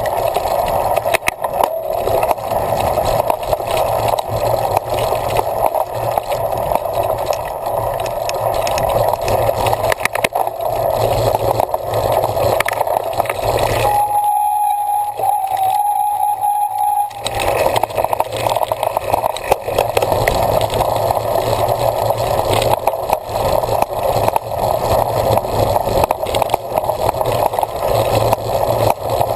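Steady rush of wind and tyre noise from a cyclocross bike being ridden at race pace, picked up by a camera carried on the bike or rider. The rush drops away for about three seconds around the middle, leaving only a faint steady tone.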